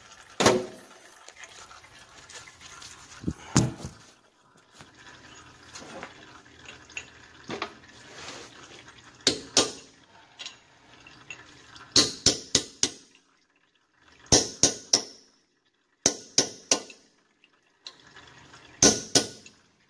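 Hammer striking a chisel set against the metal lock tab on a rear axle hub nut, bending the tab out. Sharp metallic taps, a few single ones at first, then quick groups of three or four with pauses between.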